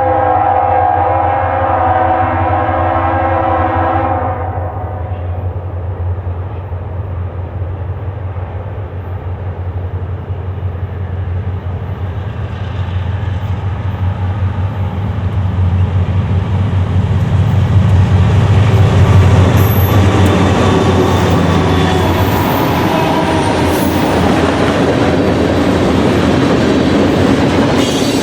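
Diesel freight locomotive's air horn sounding a chord, cutting off about four seconds in. Then the train passes close, its engines running with a low hum and its wheels clattering on the rails, growing louder past the middle.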